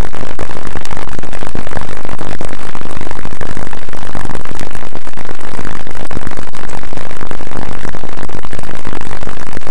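Loud background music, a dense wall of sound held at one unvarying level.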